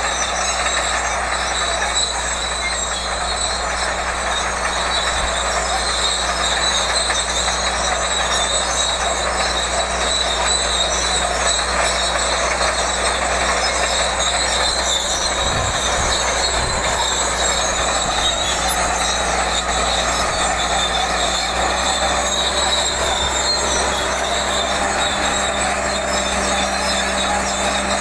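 Caterpillar D8 crawler tractor working under heavy load as it drags a deep plough: a steady diesel engine drone with metallic squealing and clatter from its steel tracks.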